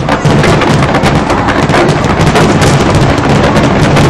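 Dense barrage of aerial fireworks shells: many rapid bursts and crackles running together into a loud, continuous rumble.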